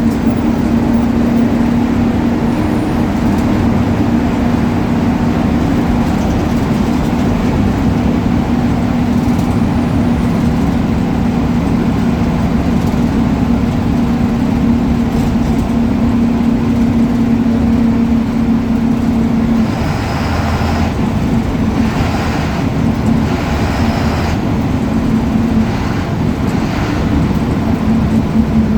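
Ashok Leyland BS4 bus diesel engine running with a steady drone. About twenty seconds in, the drone becomes uneven and short bursts of hiss come and go.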